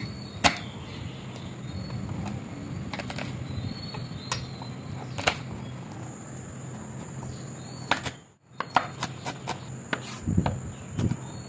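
Chef's knife chopping garlic cloves on a wooden cutting board: a few separate strikes at first, then, after a short break about eight seconds in, quicker chopping, over a steady low hum.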